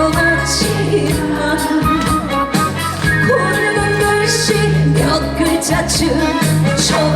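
Trot song performed live: a woman singing over backing music with a steady bass and beat.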